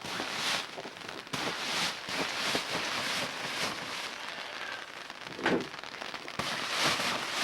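Brush strokes scraping wet snow off a gazebo roof, a crackly scrape about twice a second, with a louder thump about five and a half seconds in.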